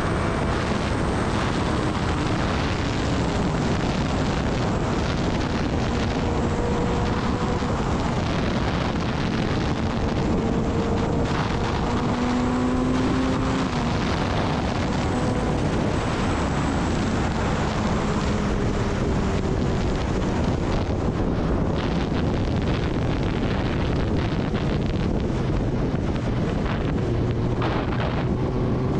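Kawasaki Ninja ZX-10R's inline-four engine running at cruising speed under a steady rush of wind over the microphone; the engine note drifts slowly up and down.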